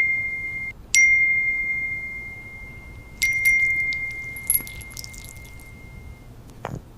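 A high, single-pitched chime struck three times: at the start, about a second in, and just over three seconds in. Each ring fades slowly, with a few light high tinkles after the third strike.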